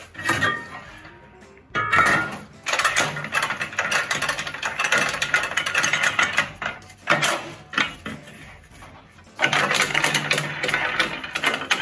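Metal lid set onto a Smokaroma pressure smoker and its star-shaped clamp knobs spun down on their threaded studs to seal it: rapid metallic rattling and clicking in three spells with short pauses between.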